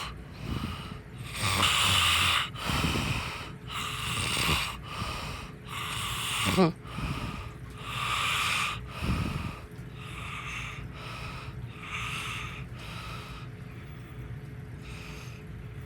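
Snoring and snorting from a sleeper: noisy breaths in quick succession, about one to two a second, with a short whistling snort that rises and falls in pitch a little before the middle.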